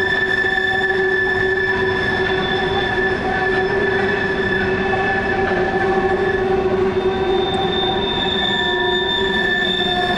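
Freight cars' steel wheels squealing against the rails as the train rounds a curve: a steady squeal of several tones held over the rumble of rolling wheels.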